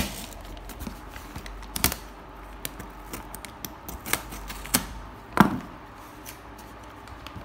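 A cardboard shipping box being handled: paper and packing tape rustling as they are peeled off, broken by a few sharp clicks and knocks, the loudest about five seconds in.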